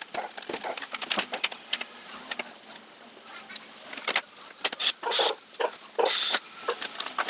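Clicks, taps and scraping of a plastic battery-charger housing being opened and handled on a table, with a few louder scraping rustles in the second half.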